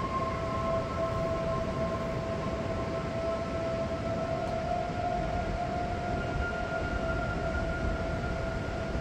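Held droning tones, a few at a time, sliding slowly in pitch like a background music pad, over a steady rushing noise.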